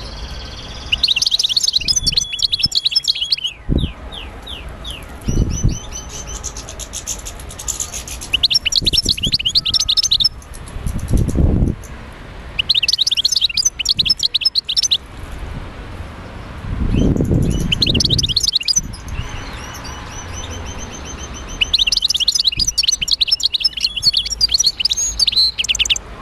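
A songbird singing: five bursts of rapid, high twittering trills, each a few seconds long, repeated every few seconds. Between the phrases there are two short low rumbles.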